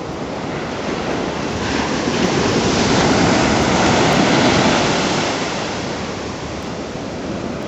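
Ocean surf: a wave breaking and washing up the beach, swelling about two seconds in and dying away over the next few seconds.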